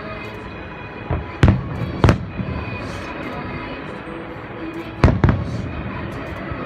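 Fireworks shells bursting, about five booms: three in the first couple of seconds and a close pair about five seconds in, over the show's accompanying music playing steadily.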